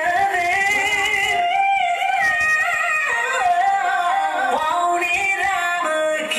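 A singer's voice holding long melodic notes that slide up and down in pitch, over a music track.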